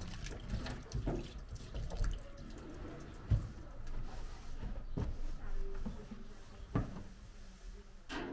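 Tap water splashing into a stainless-steel kitchen sink, then a cloth wiping around the sink and counter, with a few sharp knocks and clatters.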